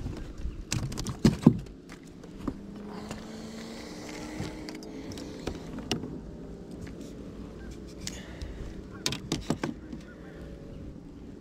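Scattered clicks and knocks from handling fish and fishing gear in a plastic kayak. There is a cluster about a second in and another near the end, over a faint steady hum.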